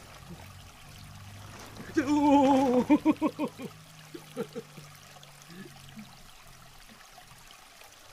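A man laughs about two seconds in: a held, wavering note that breaks into a quick run of fading ha-ha-ha's. A stream trickles steadily underneath.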